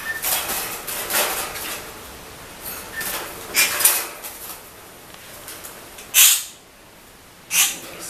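Wire bird cage rattling and scraping as a hand opens it and reaches in to catch the bird, with two brief loud rustles near the end as the bird is taken in hand.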